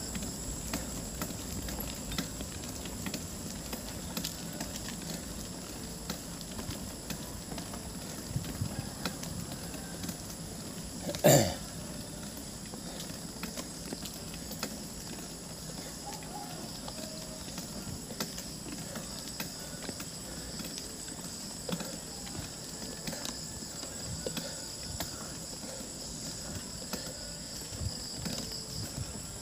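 Outdoor noise with a steady high insect trill and scattered light clicks, and one loud thump about eleven seconds in.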